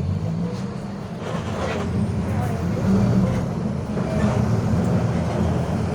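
Mercedes-Benz OF 1721 bus's OM924LA 4.8-litre four-cylinder diesel running under way, getting louder from about two seconds in as it pulls, with the differential growling under it.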